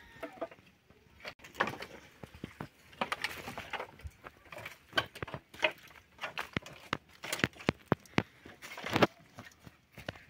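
Dry branches and twigs cracking, knocking together and rustling as they are pulled from a woodpile and gathered into an armload for firewood. There are irregular sharp cracks and clatters throughout, the loudest about nine seconds in.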